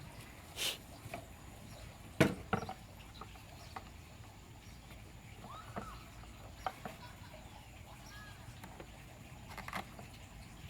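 Scattered knocks and clicks of a track saw being handled and set onto its guide rail. The loudest is a single sharp knock about two seconds in. A few faint short chirps fall in between, and the saw's motor is not running.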